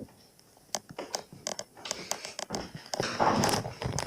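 Scattered light clicks and knocks of tools and metal parts on a built-in dishwasher being taken out. About three seconds in comes a louder scraping.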